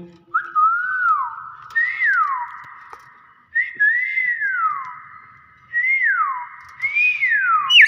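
Common hill myna whistling: five loud whistled phrases, each a short rise and then a long falling glide.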